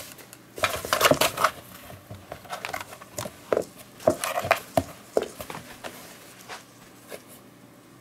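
A kitten scrabbling and clawing inside a cardboard box: irregular bursts of scratching and scraping on the cardboard with sharp knocks, busiest in the first half and dying away near the end.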